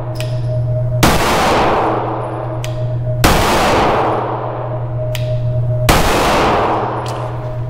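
Three 9mm pistol shots from a SIG Sauer P320 M18, about two to two and a half seconds apart, each followed by a long reverberant decay from the indoor range.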